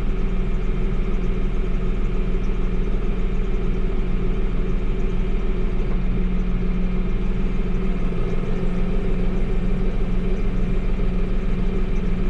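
Tractor engine running steadily, heard from inside the cab.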